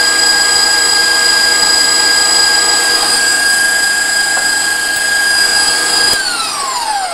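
Electric kitchen mixer running at a steady high whine while beating a cream cheese filling, then switched off about six seconds in, its pitch falling as the motor winds down.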